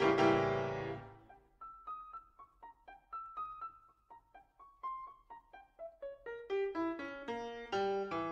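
Solo piano music: a loud chord dies away over the first second, then a quiet run of single notes, which grow louder and step down in pitch near the end.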